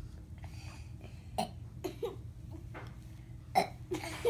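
A person burping: several short burps in a row, the loudest about three and a half seconds in.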